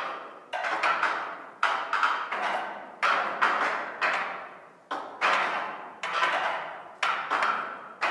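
Percussive music played live: sharp struck notes, one or two a second at an uneven pace, each ringing out and fading before the next.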